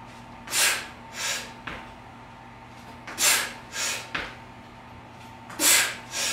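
A man breathing hard in sharp pairs, in and out, with each barbell forward lunge. Three pairs come about two and a half seconds apart.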